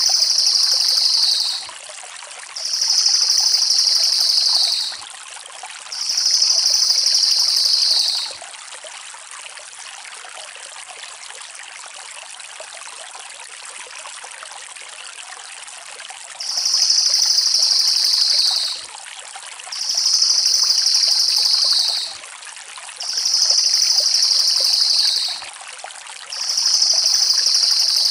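A cililin songbird singing fast, high trilling phrases of about two seconds each. The phrases come in series with short pauses and one longer break of about eight seconds in the middle, over a steady hiss like running water.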